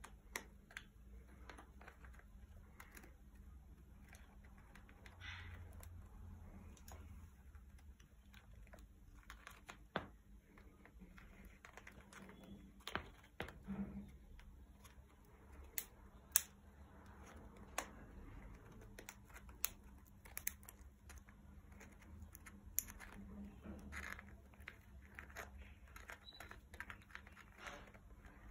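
Green-winged macaw cracking and gnawing at a walnut shell with its beak: irregular sharp clicks and cracks of beak on shell, with soft scraping between.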